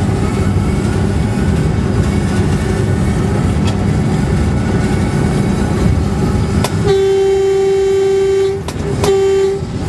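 Steady rumble of a train running on the rails, heard from the locomotive cab. About seven seconds in the locomotive horn sounds one long single-note blast, then a short second one.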